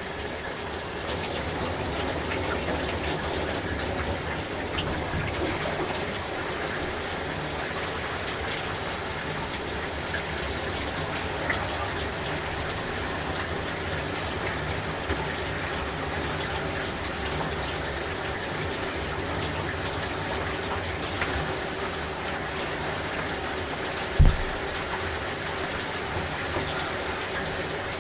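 Shower water spraying steadily, falling on a person and the shower floor. About 24 s in there is a single dull low thump.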